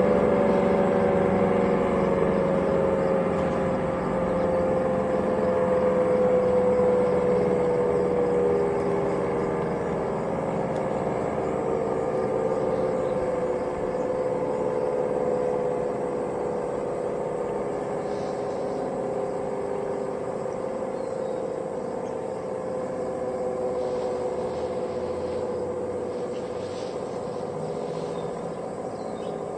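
Synthesized Federal Cold War civil defense sirens with 9/12-port rotors sounding together as a chord of several steady tones. The tones slowly fall in pitch and fade as the sirens wind down.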